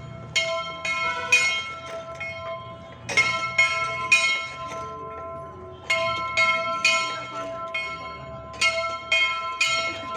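A bell struck again and again in quick groups of three or four strikes with short pauses between, its note ringing on steadily between strikes.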